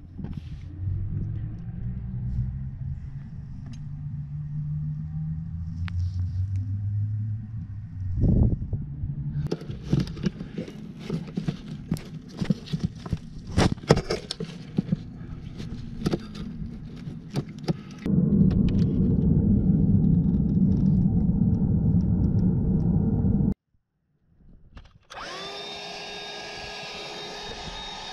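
Work in a car's battery-tray area, heard in several parts: a low, uneven hum, then a run of sharp clicks and knocks from hands working among bolts and fittings, then a loud steady noise for about five seconds. After a short break near the end, a cordless handheld vacuum starts up and runs with a steady whine as it sucks up dirt.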